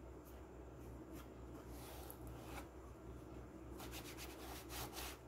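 Faint rubbing and scraping as clear glue is spread and worked into the wooden joints of a subwoofer box to seal it, with a few quick scrapes near the end.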